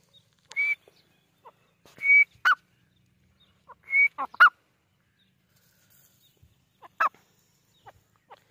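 Grey francolin calling: three clear held whistled notes, each followed by one or two sharper falling notes, then a single sharp note later on, with soft short notes in between.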